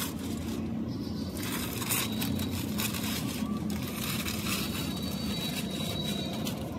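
An engine running steadily with a low hum, with irregular rasping noises over it.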